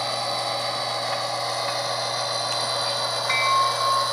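HO scale Santa Fe diesel locomotive's sound decoder playing a diesel engine running at low notch through its small onboard speaker, along with the model's wheels on the rails as it creeps slowly forward. The sound is steady, and from about three seconds in a repeating high tone joins in.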